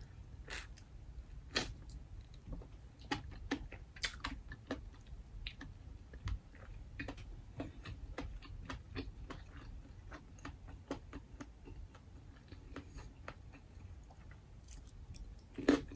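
Quiet, close-miked chewing and mouth sounds from eating mussels, with irregular sharp clicks scattered throughout as mussel shells are picked through.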